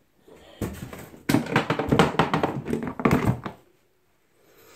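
A run of knocks and taps from objects being handled, lasting about three seconds.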